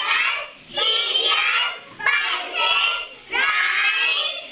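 A class of young children chanting together in unison, in three phrases of about a second each with short pauses between.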